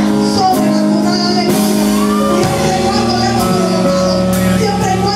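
A woman singing into a microphone over a live church band: drum kit with regular cymbal strokes, electric bass and held keyboard chords.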